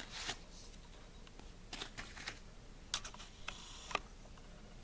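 Faint handling noise of trading cards and their booster-pack wrapper: a few light clicks and short soft rustles, with a sharper click about three seconds in and another near four seconds.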